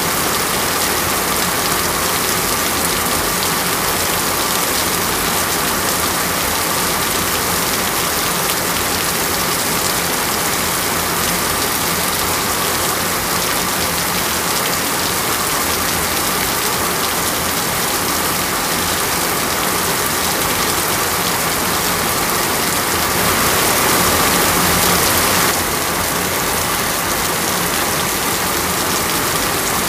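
Heavy rain falling steadily, a dense even hiss. It grows briefly louder about three-quarters of the way through, then drops back suddenly.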